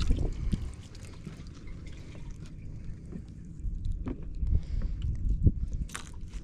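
Water sloshing and dripping as a hand is dipped into the water and lifted out, with a few small knocks in the second half over a low, steady rumble.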